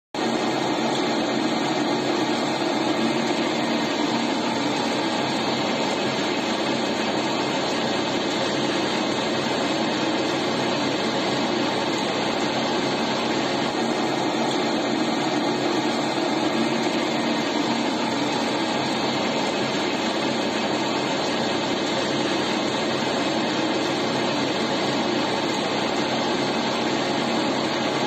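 Small flat-die feed pellet mill running under load, pressing feed into pellets: a steady, even mechanical noise with a low hum underneath.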